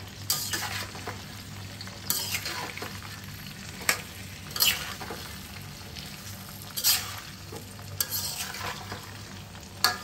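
Metal spatula scraping and stirring hog plum pieces in hot mustard oil in a stainless steel karahi, over a steady sizzle. The scrapes against the pan come every second or two.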